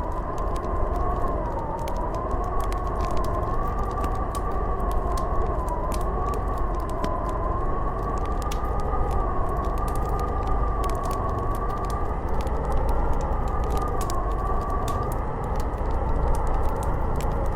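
Blizzard wind howling, a wavering whistling tone that slowly rises and falls over a low rumble, with a wood fire crackling in many sharp little pops.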